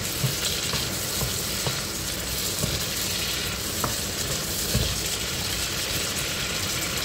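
Diced pork sizzling in oil and the water it has released, in a non-stick frying pan, as a wooden spoon stirs it, with a few light knocks of the spoon against the pan.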